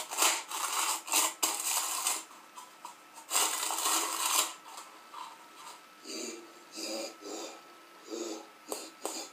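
A person making weird breathy noises with the mouth and nose: a run of loud hissing puffs and blows, then softer, lower huffs.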